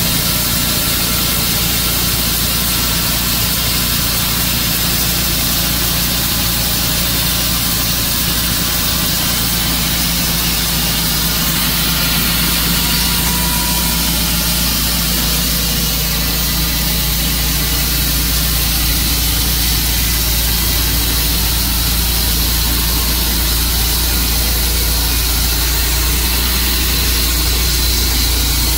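Tru-Cut sawmill's engine running at a steady speed, with no change in pitch or level.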